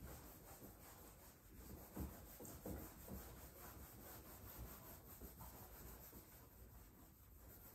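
Faint rubbing of an eraser wiping a whiteboard, in repeated soft strokes, with a couple of light knocks about two seconds in.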